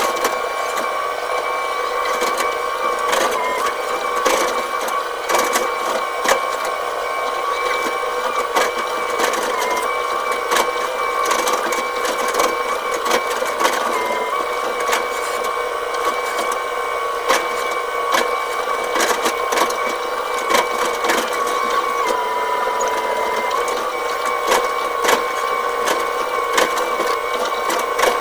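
Excavator running under load, heard from inside the cab: a steady engine and hydraulic whine that dips in pitch several times as the boom and bucket work, over frequent knocks and rattles.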